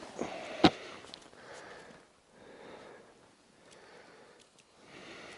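A single sharp click a little over half a second in, followed by a man's quiet breathing and sniffing close to the microphone, in soft swells about once a second.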